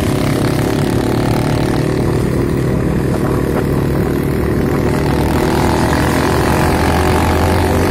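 A small motorcycle engine running steadily under way, heard from the rider's seat along with wind and road noise. The engine is a little louder in the second half.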